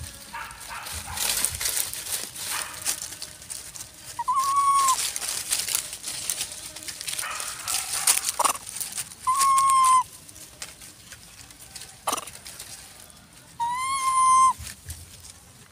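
A young macaque calls three times, each a clear, high, steady coo of under a second, the last the loudest. Two short falling squeaks come between the calls, and dry leaves crackle through the first half.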